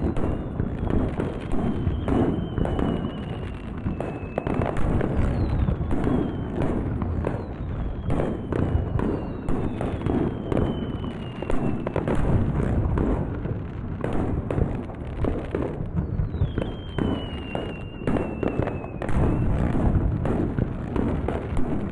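A fireworks display going off: a dense, continuous run of bangs and crackles. Several long whistles slide slowly down in pitch over it, each lasting two or three seconds.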